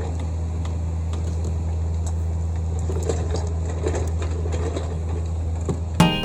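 Kobelco SK55 compact excavator's diesel engine running at a steady pitch, with a few faint knocks from the work.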